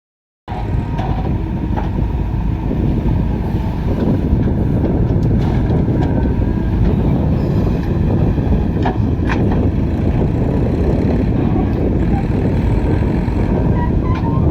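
Heavy diesel machinery running steadily under load: a dense, loud low rumble with a few faint knocks, after a half-second dropout at the very start.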